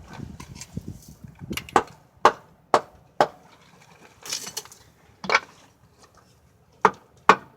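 Mallet striking a breaker bar to break loose the clutch centre lock nut: a run of sharp knocks, four in quick succession about two seconds in, then three more spaced out near the end.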